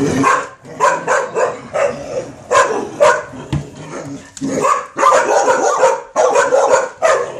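A dog barking over and over at a skateboard, in short sharp barks about two a second. The barking shows that the dog is agitated by the board.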